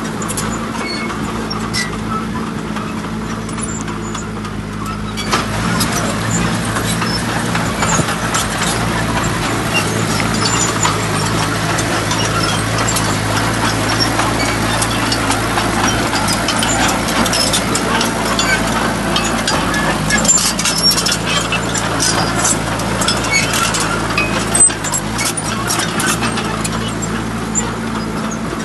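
Heavy truck's diesel engine running steadily. About five seconds in, a louder, noisier rush with scattered clicks and knocks joins it.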